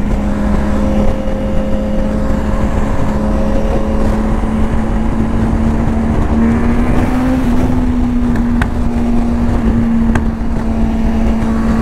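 Motorcycles running at highway speed with heavy wind rush on a helmet-mounted microphone: a steady engine drone that rises slightly midway. Two short sharp pops near the end, from a sportbike's aftermarket Akrapovič exhaust popping alongside.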